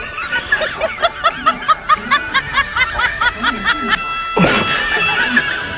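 Comedic sound effects over background music: a fast run of short, chirpy repeated notes, about six a second, for some three seconds, then a whoosh about four and a half seconds in.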